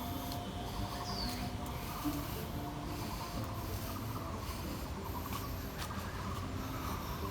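Outdoor ambience: a steady rushing hiss with a low rumble, with short high chirps over it, one a quick sweeping call about a second in.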